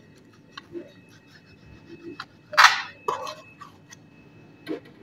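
Kitchen knife cutting the crusts off slices of white bread on a plastic cutting board: scattered light taps of the blade on the board, with one louder cutting scrape a little past halfway and a knock near the end.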